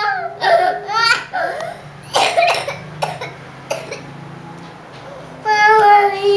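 Toddler crying: short sobs, then a few harsh coughs and a brief lull, and about five and a half seconds in a long wail starts, slowly falling in pitch.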